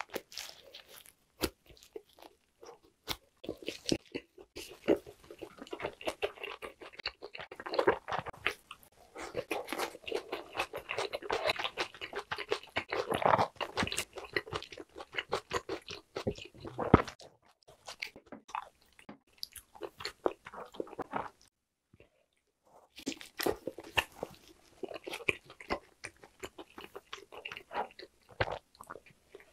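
Close-miked chewing of grilled lamb skewer meat: wet mouth clicks and smacks, pausing for about a second about three quarters of the way through.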